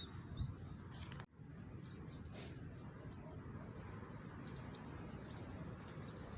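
A small bird chirping outdoors: a run of about ten short, high chirps, each dropping quickly in pitch, in the middle of the stretch, over a steady low background rumble.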